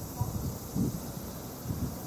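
Wind buffeting the microphone in three short low gusts, over a steady high-pitched outdoor insect hiss.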